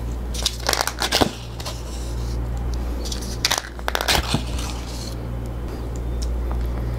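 Crunching, crinkling noises in two short clusters, about half a second in and again around three and a half seconds, over a steady low hum.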